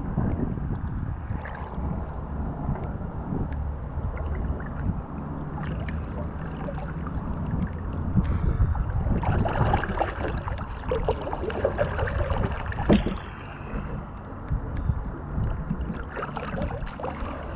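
Canoe paddle strokes dipping and pulling through calm river water, with trickling and splashing, over a low rumble of wind on the microphone. The splashing is busiest around the middle, with one sharp knock just after that.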